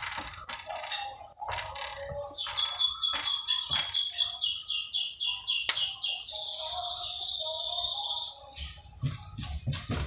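A bird singing: high whistled notes, then a fast trill of repeated downward-sweeping notes at about five a second for a few seconds, then held whistles again. Near the end a louder hiss sets in.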